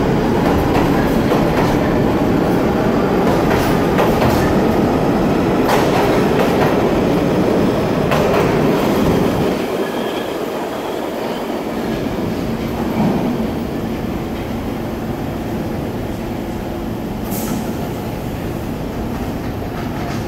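R46 subway train running through the station at speed without stopping: a loud rumble with repeated wheel clicks. About halfway through, as the last car passes, the sound drops off to a quieter rumble as the train recedes down the tunnel.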